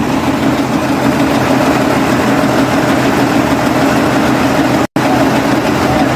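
Combine harvester engine running steadily at a constant speed. The sound cuts out for an instant about five seconds in.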